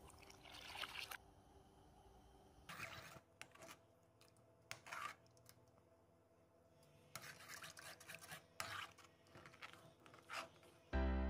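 A metal spoon stirring and scraping through milk and custard in a cooking pan, in a string of short, faint strokes. A music jingle starts right at the end.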